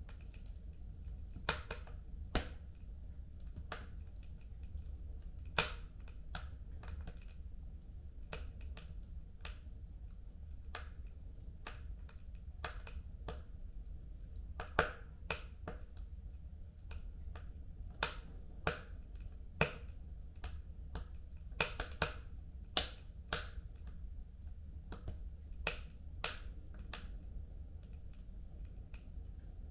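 Fire crackling in a home fireplace: irregular sharp pops and snaps, a second or more apart and bunching up about two-thirds of the way through, over a low steady rumble.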